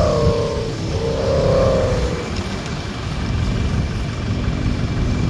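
Wind buffeting the microphone in uneven gusts, a heavy low rumble. A faint wavering hum sits over it for the first two seconds.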